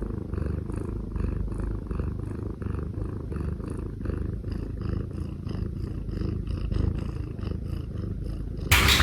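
Kitten purring: a steady low rumble with a soft pulse about three times a second. A sudden loud rushing noise cuts in near the end.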